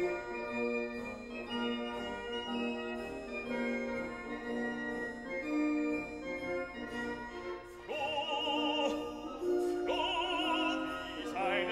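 Classical-style background music: a keyboard melody, joined about eight seconds in by a high singing voice with wide vibrato.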